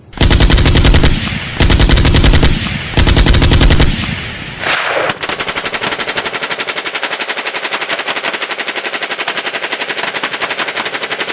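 Fully automatic rifle fire from an AK-pattern rifle with a drum magazine: three bursts of about a second each, then from about five seconds in one long unbroken burst of rapid, evenly spaced shots.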